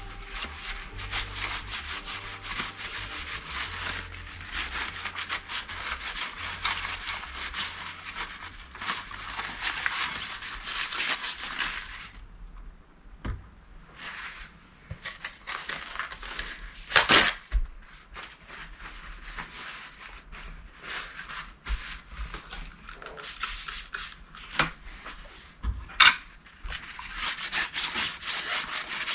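Old thermal paste being rubbed and wiped off the metal base of a CPU cooler, in long stretches of steady scrubbing. The scrubbing pauses midway, with two sharp knocks, then starts again near the end.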